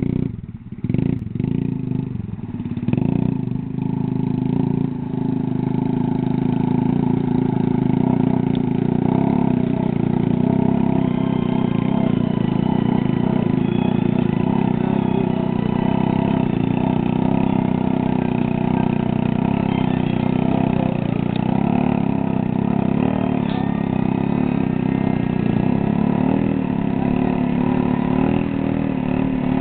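Quad ATV engine revving in short, uneven bursts for the first few seconds, then held at steady high revs while the quad sits bogged in deep mud.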